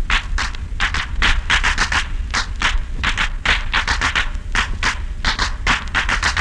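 Turntable scratching on a record: quick, uneven hissy strokes, about three or four a second, over a low rumble.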